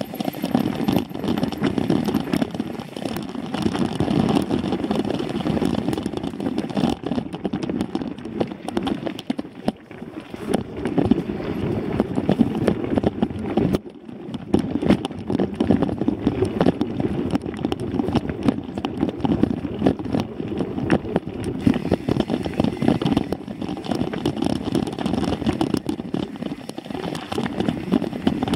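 Mountain bike ridden fast over a bumpy dirt singletrack: a constant rattle and clatter of the bike and its mounted camera jolting over the ground, with tyre rumble. There is a brief lull about halfway through.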